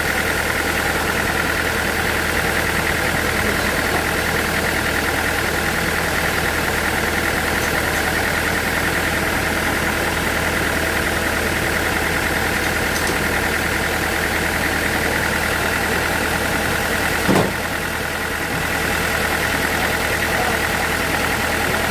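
Sawmill machinery running steadily with a constant high whine. A single sharp knock comes about seventeen seconds in, and the noise dips briefly after it.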